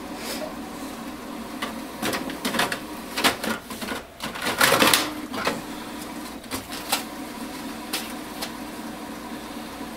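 Plastic paper cassette of a Canon MAXIFY MB2020 inkjet printer being handled, slid into the printer and pulled back out: a series of clicks and knocks, with a louder plastic scrape about four and a half seconds in. A low steady hum runs underneath.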